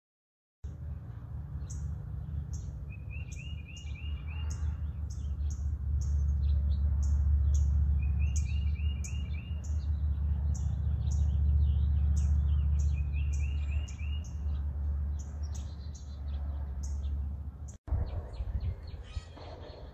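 Songbirds chirping outdoors, with one bird repeating a short, fast trill about every five seconds. Under them is a loud, uneven low rumble that swells in the middle and eases off, with a brief cut near the end.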